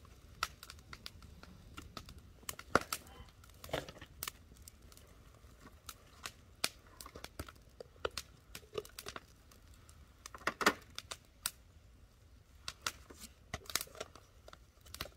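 Irregular sharp crackling and popping of fish grilling, with a couple of louder clicks about three and eleven seconds in.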